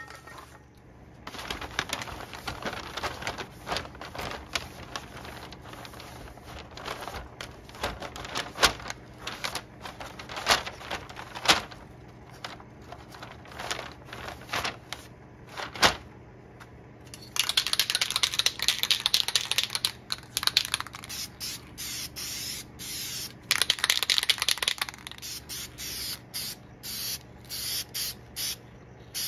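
Paper towel scrubbed over a car grille, with a stream of clicks and scrapes. It is followed by an aerosol paint can being shaken, its mixing ball rattling in long bursts and then in shakes about twice a second.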